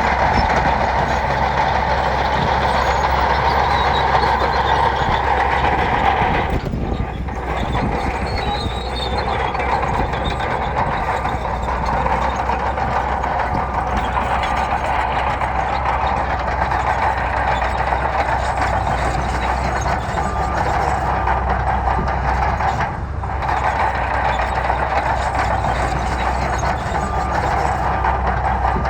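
Bulldozer's diesel engine running steadily under load, with a dense mechanical noise; it dips briefly twice.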